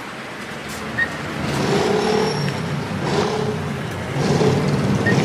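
A motor vehicle's engine running close by, growing louder about a second and a half in, with two short electronic beeps, one about a second in and one near the end.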